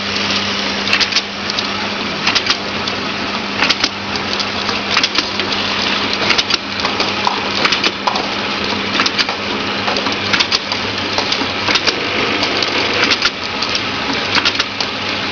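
Vial filling, stoppering and sealing machine running: a steady mechanical clatter with many sharp clicks, over a low hum that drops partly away about two-thirds of the way through.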